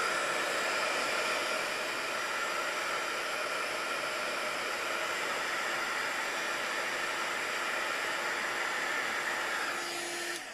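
Craft heat gun blowing steadily, a constant fan rush, melting embossing powder on a small butterfly cutout; it switches off just before the end.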